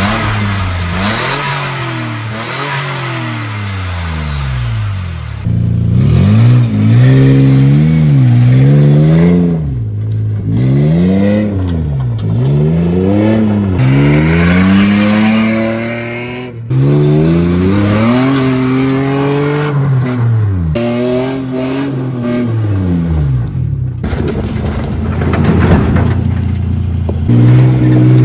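Supercharged Nissan VG30 3.0-litre V6 revving up and down over and over, its pitch rising and falling every second or two as the pickup is driven hard on dirt. The sound breaks off and changes abruptly several times.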